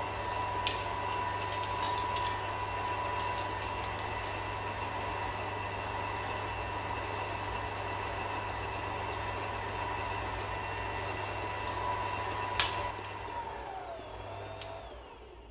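Electric stand mixer running steadily as its beaters mix a butter, sugar and egg batter, with a few light clicks early on. About twelve and a half seconds in there is a sharp click, and the motor winds down, its pitch falling, until it stops near the end.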